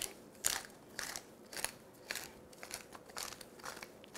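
Wooden pepper mill grinding black peppercorns, twisted by hand in a series of short grinding strokes, about two a second.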